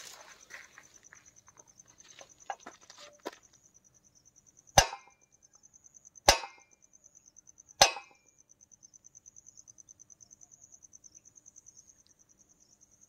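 Three sharp metal strikes with an iron rod on a borewell's steel casing, about a second and a half apart, each with a brief ring. They are the strikes that the Bhujal phone app listens to in order to measure the depth to the water in the well. A cricket chirps steadily throughout.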